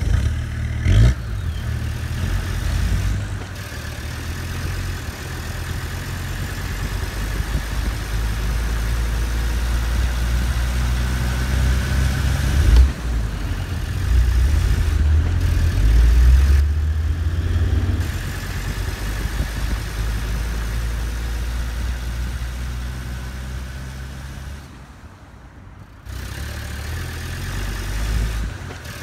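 RC-converted Bruder Land Rover Defender model driving with a steady, low, engine-like drone that rises and falls. The drone dips briefly near the end.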